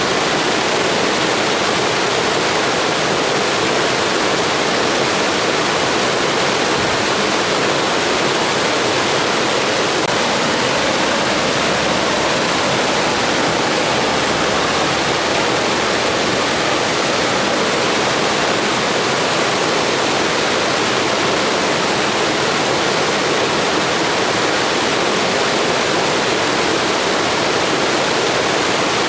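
Steady rushing wind of a blizzard, a constant even roar with no distinct gusts or breaks.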